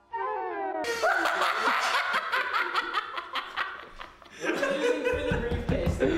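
A man laughing hard close to the microphone, in rapid bursts, with a low rumble underneath near the end. A short bit of music fades out in the first second.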